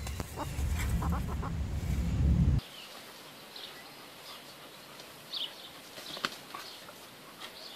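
Low wind rumble on the microphone for the first two and a half seconds. Then, more quietly, a chicken gives a string of short, high squawks while it spars with a dog.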